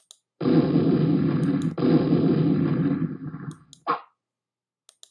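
Intro sound effect under a channel logo: a loud, low, noisy burst that starts suddenly about half a second in, a second one right after it that fades out, and a short third burst near four seconds.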